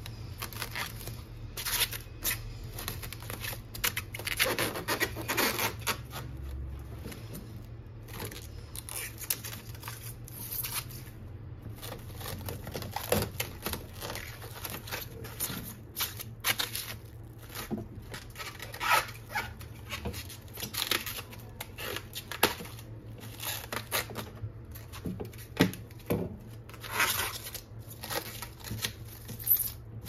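Plastic cling film being pulled out, torn and crinkled as it is pressed around a glass baking dish. Irregular rustling and crackling, with sharper crackles throughout.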